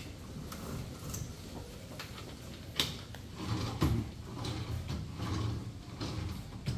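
Drawer of an aluminium cashier desk sliding open and shut, with clicks and rattles from the metal frame, the sharpest about three seconds in.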